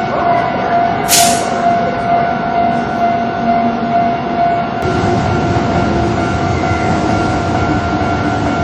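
Japanese level-crossing electronic warning bell ringing in its repeating kan-kan pattern, over the rumble of an approaching train that grows louder and rougher about halfway through. A short hiss sounds about a second in.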